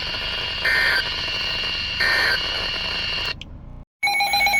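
Weather radio receiver between broadcasts: hiss with a steady high whine and a short beep about every 1.3 s. It cuts out about three and a half seconds in, goes briefly silent, and a new steady alert tone starts near the end.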